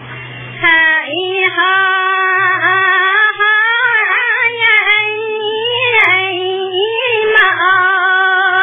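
A high voice singing a sliding, held melody, starting after a brief pause about half a second in.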